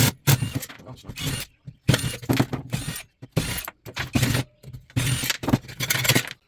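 Screws being backed out of a ceiling fan's metal parts: irregular short bursts of mechanical ratcheting and metal clatter.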